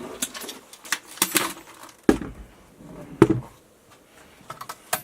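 Knocks and clatter of a Losi 5ive-T large-scale RC truck being turned over and handled: a string of sharp bumps and clicks, the loudest about three seconds in.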